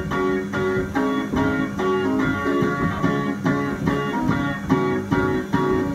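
Kiddie ride's speaker playing the instrumental part of its theme song: a bouncy tune of repeated notes over a steady beat, between the vocal lines.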